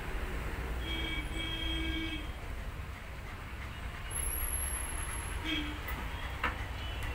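Large hand-spun potter's wheel turning on its pivot under a clay pot being thrown, a steady low rumble. A short pitched tone sounds about a second in and again briefly past the five-second mark.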